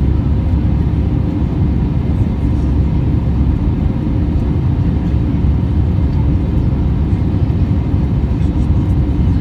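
Steady, loud low rumble of jet engine and airflow noise inside an Airbus A320's cabin during the climb after takeoff, with a faint steady hum running through it.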